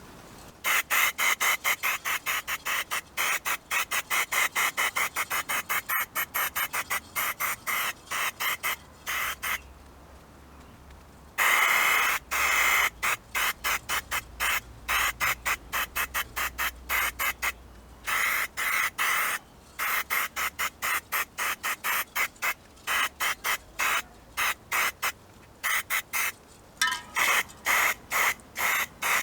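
Rapid, regular scrubbing or scraping strokes on the stove's metal, about four a second, in runs broken by short pauses, with one longer unbroken stretch about eleven seconds in.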